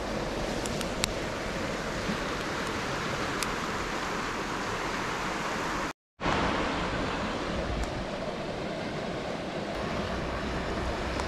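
Steady rush of a shallow river running over a gravel bed, with a few faint sharp clicks in the first few seconds. The sound cuts out for a split second about six seconds in, then the same rush carries on.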